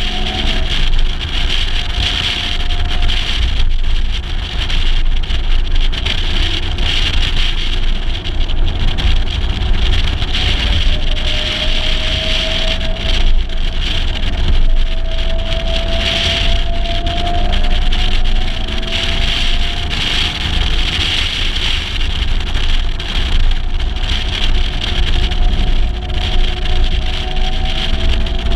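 Wind rumbling on a microphone mounted outside a moving 1956 Mercedes-Benz 300 SL, with the car's straight-six engine heard faintly. The engine note climbs slowly a few times as the car accelerates.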